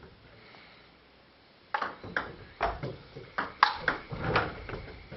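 Table tennis rally: the ball clicking sharply off the bats and table in an uneven quick series, beginning about two seconds in after a short quiet spell.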